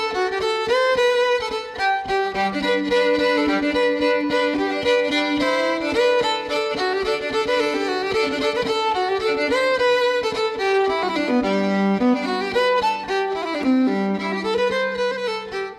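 Instrumental music led by a fiddle playing a melody over held lower notes.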